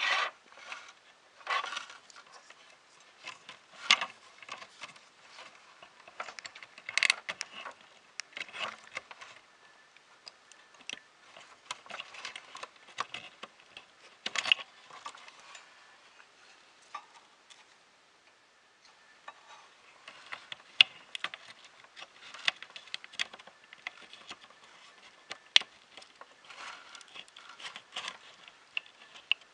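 Irregular small clicks, taps and rustles of hands handling a 3D printer's print head feeder cable and its plastic parts, with a few sharper clicks scattered throughout.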